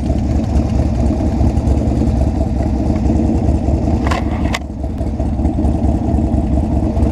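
Motorcycle engine idling, a steady low rumble. About four seconds in there are two short, sharp knocks about half a second apart.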